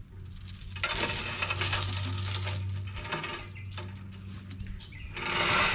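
Heavy steel binder chain (5/16-inch grade 70) clinking and rattling as it is handled and pulled over a log load against the truck's steel stakes, in two bouts: about a second in, and again louder near the end.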